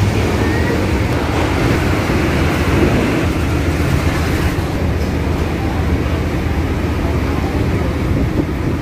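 Steady low rumble of heavy vehicle engines, from buses and trucks idling and moving in a queue.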